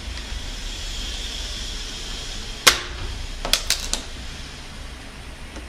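Plastic packing straps being worked off a cardboard monitor box: a faint rubbing at first, then one sharp snap about two and a half seconds in and a few lighter clicks a second later.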